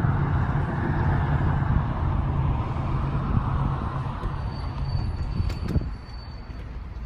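Road traffic from a nearby street: a steady low vehicle rumble with tyre noise that drops off about six seconds in.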